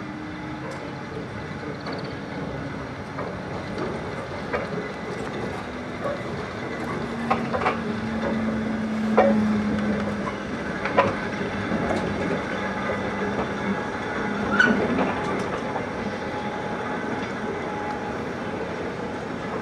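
A Class 14 diesel-hydraulic locomotive hauling a short goods train of wagons past slowly: a steady engine drone, with the wagon wheels clicking and knocking over the rail joints as they roll by, the louder knocks coming in the middle.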